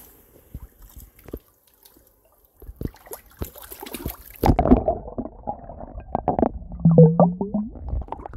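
Water splashing and gurgling in an ice-fishing hole as a lake trout is let go down through it. The splashing starts loudly about halfway through, after a few faint ticks.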